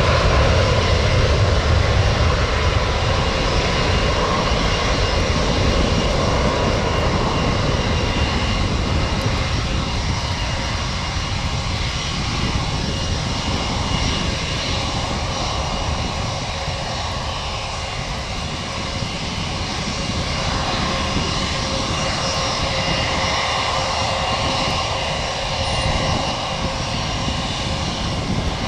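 Boeing 737 MAX 8's CFM LEAP-1B turbofans at takeoff thrust as the jet rolls down the runway, lifts off and climbs away: a steady jet-engine noise with faint whining fan tones, loudest at first and slowly fading as it departs.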